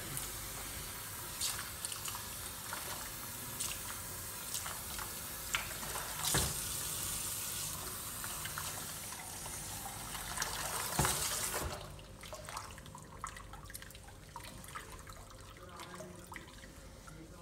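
Water running steadily from a tap, shut off abruptly about twelve seconds in, then scattered small clicks and drips.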